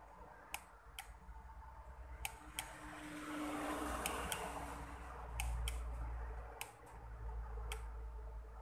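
A series of small sharp clicks, several in pairs a fraction of a second apart, from hand tools working on a power supply circuit board. A low rumble joins in about five seconds in.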